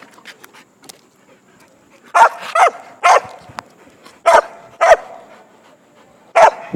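A dog barking: six short, loud barks in loose pairs, starting about two seconds in.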